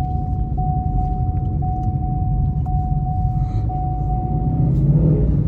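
Car engine and road noise heard from inside the cabin as the car rolls slowly, a steady low rumble that swells slightly near the end. Over it runs a steady mid-pitched tone, broken at even intervals about twice a second, which stops about four and a half seconds in.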